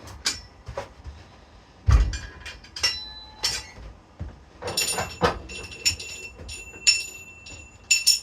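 Metal weight plates and loading hardware clinking and clanking as weight is added, with a heavy thud about two seconds in and several sharp metallic knocks that ring on briefly.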